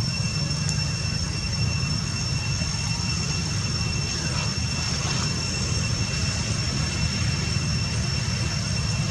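Steady outdoor background rumble with a thin, high, steady whine above it. No calls or distinct events stand out.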